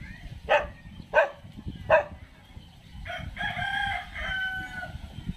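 A dog barks three times in quick succession, then a rooster crows once, a long call of nearly two seconds about three seconds in. The barks are the loudest sounds.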